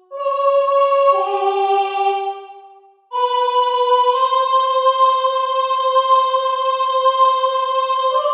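Soprano voice in several overlaid lines, singing long sustained notes that overlap in harmony. The notes fade out about three seconds in, then a single long held note comes in.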